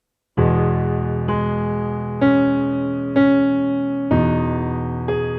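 Piano playing a slow melody over a held low chord: about a third of a second in, a chord is struck, then single notes follow about once a second, each left ringing into the next, with one key struck twice in a row.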